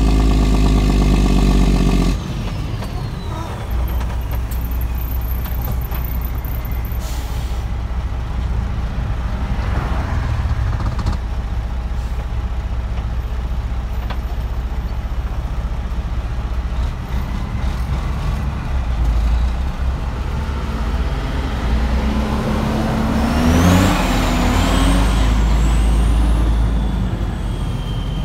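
Cabover dump truck's Detroit 12.7 diesel engine running loud for about two seconds, then dropping to a lower steady rumble as a whine winds down. Short air hisses follow, with a louder one near the end, typical of the truck's air brakes.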